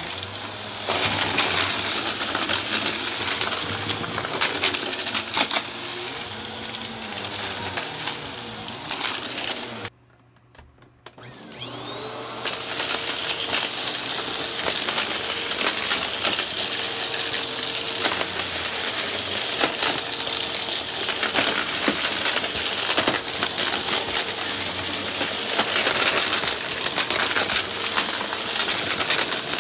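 Bagless upright vacuum cleaner running on carpet with its brushroll spinning, sucking up crunchy debris: a steady motor hum with a constant rattle of small bits clicking through the brushroll and up the hose. About ten seconds in the sound cuts out for about a second, then the motor whines back up to speed.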